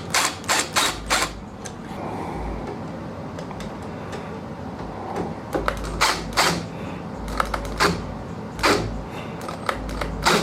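Sharp clicks and knocks of metal hardware as a long machine screw is driven in to fasten the two halves of a door lever through the door. The clicks come in short clusters, a few right at the start and more from about halfway on.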